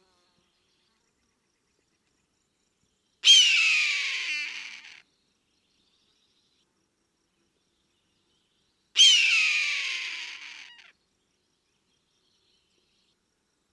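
Red-tailed hawk screaming twice, about six seconds apart; each scream starts sharply, slides down in pitch and fades out over under two seconds.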